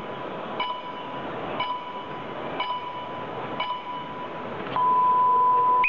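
Electronic countdown beeps from the contest timer: four short beeps about a second apart, then one long beep near the end, the usual signal for the match to start. A crowd murmurs underneath.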